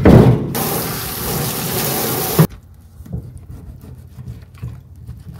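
Water running hard from a sink faucet into a stainless-steel basin, shut off abruptly about two and a half seconds in. After that, faint light clicks of a filleting knife on a wooden cutting board.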